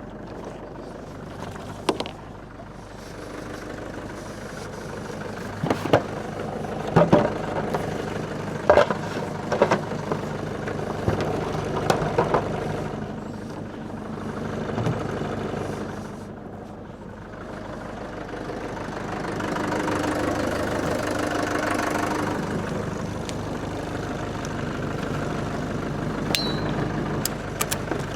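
An engine running at a steady idle, with scattered sharp knocks and clanks over it.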